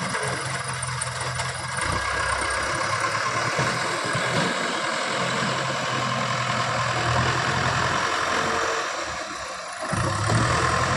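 JCB 3DX backhoe loader's diesel engine running steadily, dropping off briefly near the end and then picking up again.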